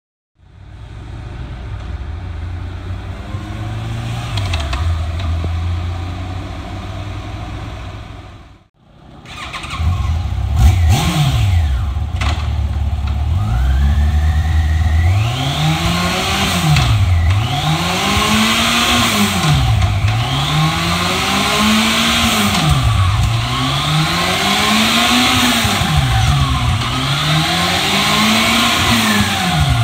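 2008 Yamaha FJR1300 motorcycle engine, an inline-four, first heard running on the road. After a short break it runs on a shop lift, revved up and down repeatedly during an engine and transmission check, its pitch rising and falling about every two and a half seconds.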